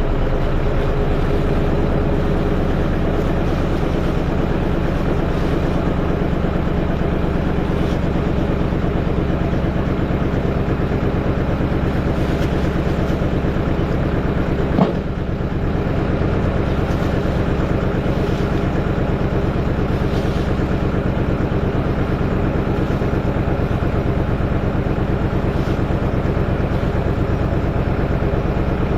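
An engine running steadily at an even speed, with one sharp knock about halfway through.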